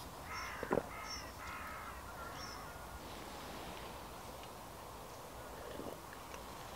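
A crow cawing: about four caws in quick succession over the first two or three seconds. There is a sharp knock close by just under a second in. After that only faint outdoor background remains.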